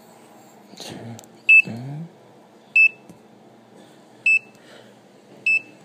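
Elevator security keypad beeping as a code is keyed in: four short high beeps, one per key press, about a second and a half apart.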